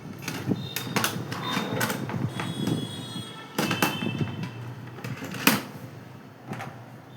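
Handling noises: a series of knocks, clicks and rustles from objects being moved and set down.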